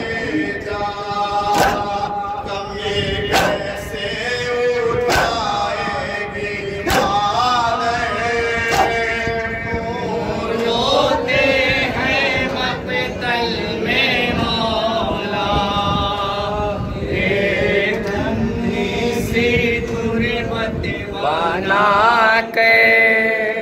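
Men chanting a nauha, a Shia mourning lament, in unison through a microphone. Through roughly the first half it is punctuated by sharp slaps of hands beating on chests (matam) every one and a half to two seconds.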